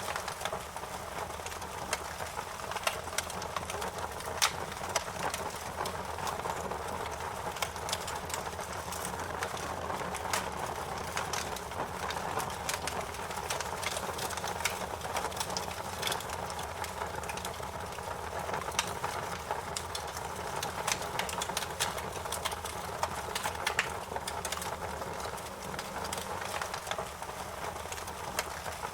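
Wood fire burning in a fireplace, crackling steadily with frequent sharp pops and snaps over a soft hiss.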